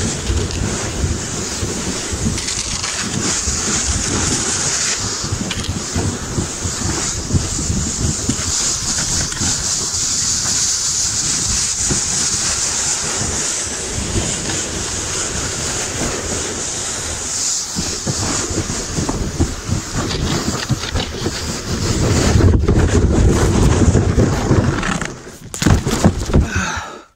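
Kayak hull sliding fast down a snowy slope: a steady hiss and scraping rumble of snow under the hull, with wind buffeting the deck-mounted microphone. The rumble grows louder a few seconds before the end, then a few knocks come just before it cuts off.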